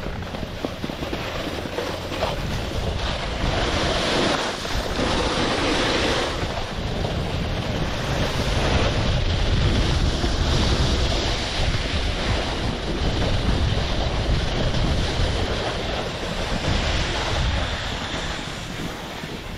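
Wind buffeting the microphone over the hiss and scrape of skis sliding on snow, swelling and easing every few seconds as the skier turns.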